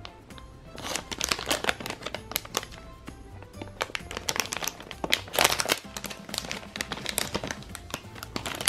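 Shiny foil blind bag of a My Little Pony figure crinkling and rustling as it is handled and opened, starting about a second in, over quiet background music.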